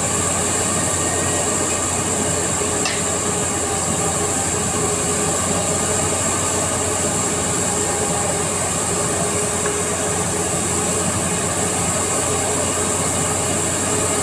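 Piling rig running steadily while pre-boring a pile hole: a constant heavy machinery drone with a low hum and a high hiss.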